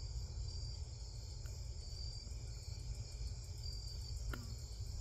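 Night insects chirping in a steady high-pitched chorus over a low steady hum, with one sharp click about four seconds in.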